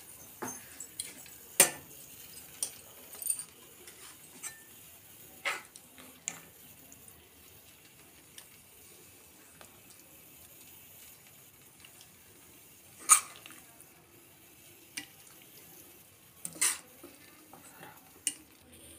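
Stainless-steel ladle clinking against a steel pot and steel serving bowl as curry is ladled out. Scattered sharp clinks a few seconds apart, the loudest about two-thirds of the way through.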